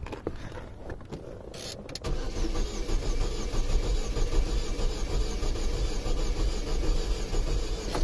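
Saturn Ion's 2.2-litre four-cylinder engine cranking over on the starter without firing, starting about two seconds in and going on steadily. It is a crank-no-start, which the previous shop blamed on a jumped timing chain.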